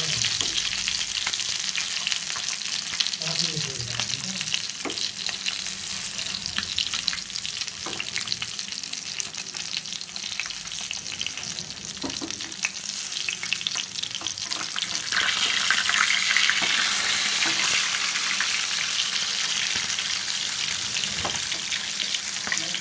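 Marinated fish frying in hot oil: a steady sizzle with crackling, which grows louder about fifteen seconds in.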